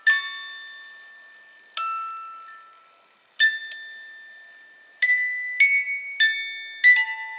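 Wooden karakuri music box playing its tune on its plucked metal comb. Single high ringing notes, each fading slowly, come about every one and a half seconds, then quicker notes follow from about five seconds in.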